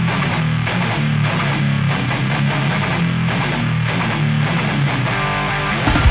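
Hardcore band playing live: an electric guitar riff opens the song, and the drums and full band come in with heavy hits just before the end.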